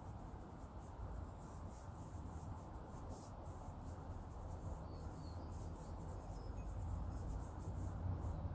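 Soft brush working gear oil into a motorcycle drive chain: faint, irregular scratchy brush strokes over a low steady hum.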